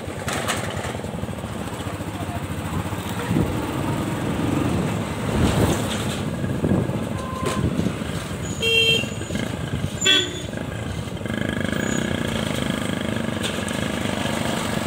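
Motorcycle riding through town traffic, its engine running under wind and road noise. Short vehicle horn toots sound twice, around 9 and 10 seconds in.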